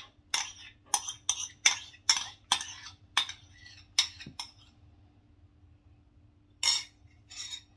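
Metal spoon scraping and clinking against the inside of a ceramic bowl, a quick run of sharp strokes for about three seconds as beaten egg mixture is scraped out, then a few more clinks near the end.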